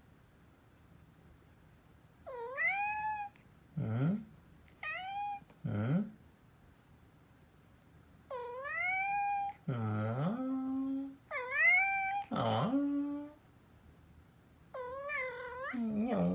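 A cat meowing five times, each meow dipping and then rising in pitch, and each answered by a person's much deeper voice imitating it with a meow of their own.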